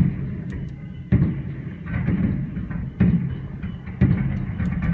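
Fireworks shells bursting overhead: a series of booms about a second apart, each starting suddenly and rumbling away, with faint crackling between them.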